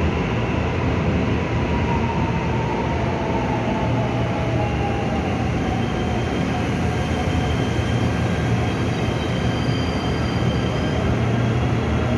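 Seoul Subway Line 1 train running into an underground station and slowing: a steady loud rumble of wheels on rail, with a whine falling in pitch in the first half and faint high wheel squeals in the second half.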